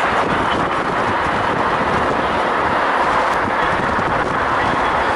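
Steady wind rushing over the microphone together with tyre and road noise from a car driving at highway speed.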